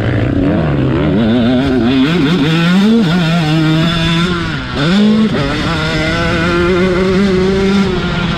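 KTM SX 125 two-stroke single-cylinder motocross engine heard on board at speed, its revs rising and falling with the throttle. About halfway through the pitch drops briefly, then climbs sharply and holds high and steady.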